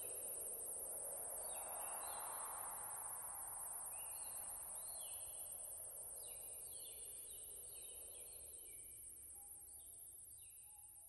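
Woodland ambience: a steady high insect trill and short repeated bird calls over a soft rushing wash that swells and then dies away, everything gradually fading.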